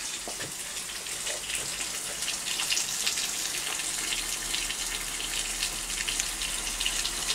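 Steady rain falling, a constant hiss sprinkled with the patter of many small drops.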